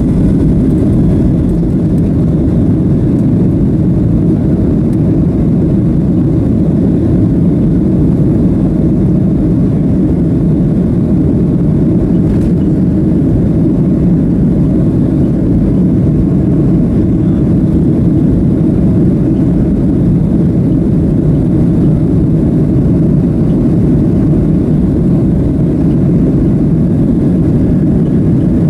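Steady, even low rumble inside the cabin of a Boeing 737-700 taxiing on the ground: its CFM56 jet engines run steadily at low thrust while the airframe and wheels rumble over the taxiway.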